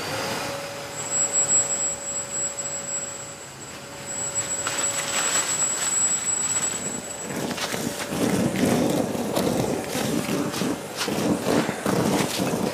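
Kärcher wet-and-dry multi-purpose vacuum running as a blower: the motor starts at once with a steady whine over a rush of air. From about the middle on there is irregular rattling and clatter as loose mess is blown about.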